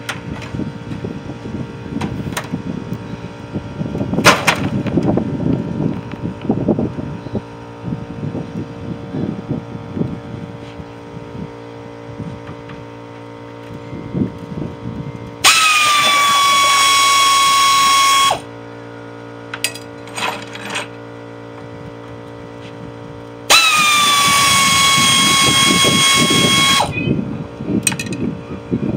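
Handheld power drill run in two bursts of about three seconds, its motor whine dropping slightly as it bites and then holding steady, taking the screws out of a scrap boiler's metal panels. Knocks and clatter of the metal being handled come between the bursts, over a steady hum.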